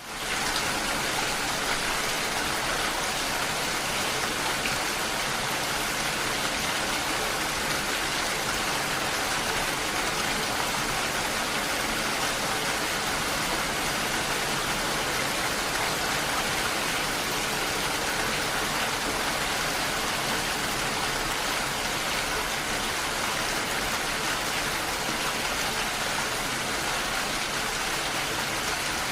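Steady rainfall, an even hiss of rain with no thunder or other events.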